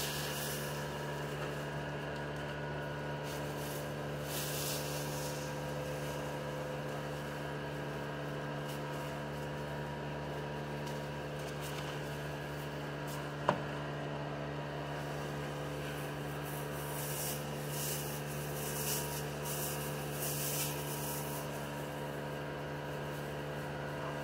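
Electric shop fan humming steadily, with a few short rubbing strokes of sandpaper on the car's body and one sharp click about halfway through.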